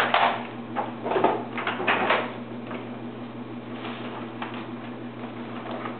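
Paper and cardboard sheets rustling and shuffling as they are handled, loudest in the first two seconds, then fainter scattered rustles and clicks. A steady low hum runs underneath.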